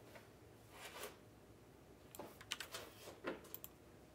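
Near silence with a few faint, scattered clicks and soft rustles.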